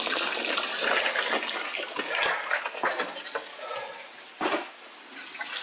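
Muddy floodwater rushing and splashing across a doorway threshold into the house. The rush is loud for the first three seconds or so and then drops away, with a single knock about four and a half seconds in.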